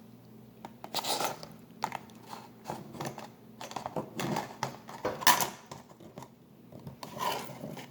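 A person eating: chewing and biting, with irregular small clicks and rustles.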